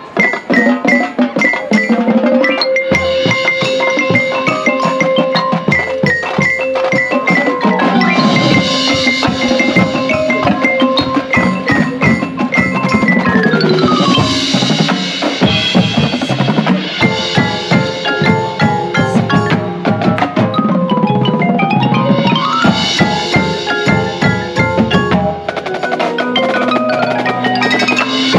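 Marching band playing its field show, the front ensemble's marimbas, xylophones and glockenspiel carrying rapid notes and sweeping runs up and down, with drums and low sustained notes underneath.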